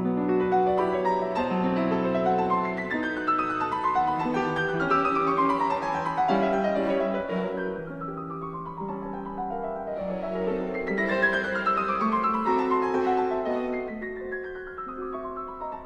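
Background music: classical-style piano playing two long descending runs of notes over held lower chords.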